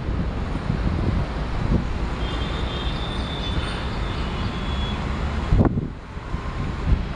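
Twin ALCO diesel locomotives working hard under load as they approach, a steady distant rumble under heavy wind buffeting on the microphone, with a sharp knock of wind on the microphone near the end.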